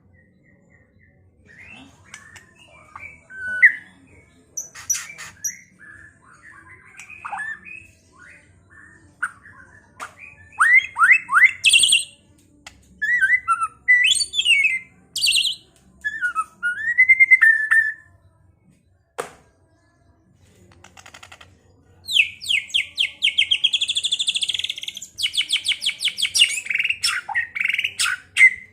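White-rumped shama (murai batu) singing a varied song of clear whistles, slurred notes and harsh chatters, with a pause just before the last third. In the last third it breaks into a long, fast run of repeated notes.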